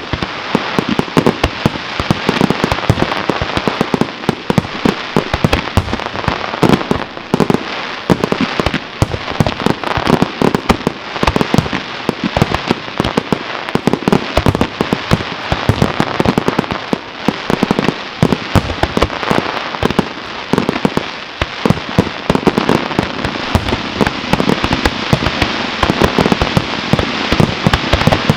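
A fireworks display in a dense, unbroken barrage: many bangs and crackles follow close on one another, with no pause.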